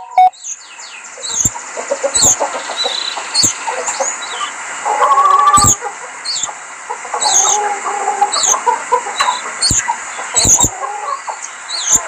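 Caged canaries chirping and calling: short high chirps repeat about once a second over lower chattering calls, which are loudest about five seconds in, with a few sharp knocks.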